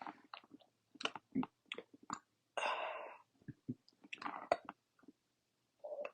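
A person's wet mouth and throat noises while straining to burp from a bloated stomach. There are scattered clicks and gulps, with a half-second breathy burst about two and a half seconds in.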